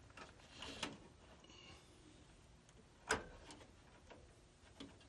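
A few faint rustles and short clicks from push-on wire connectors being worked off the blower motor's run capacitor terminals, with the sharpest click about three seconds in.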